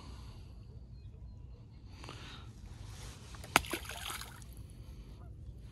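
A released crappie hitting the water: a sharp slap on the surface about three and a half seconds in, followed by a brief splash.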